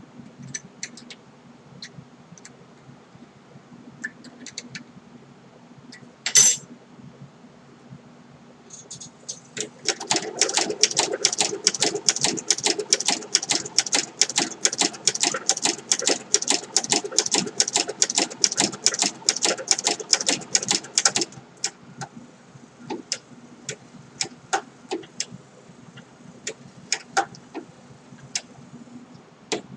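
Singer 7-34 sewing machine stitching leather: a run of rapid, even stitch clatter lasting about eleven seconds, starting about ten seconds in. Before and after it come scattered light clicks, with one sharp knock a few seconds before the run, all over a faint steady low hum.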